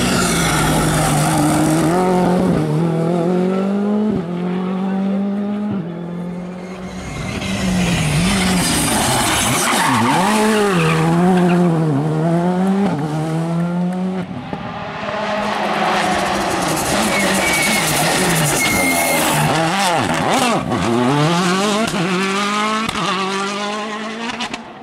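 Several rally cars pass one after another at full speed on a tarmac stage. Their engines rev hard, with the pitch climbing and dropping sharply through gear changes and lifts.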